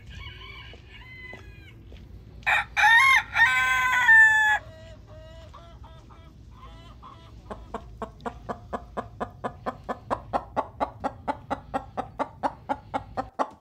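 Chickens: a rooster crows once, loudly, a couple of seconds in, and from about halfway on a hen clucks in a steady rhythm, about three to four clucks a second.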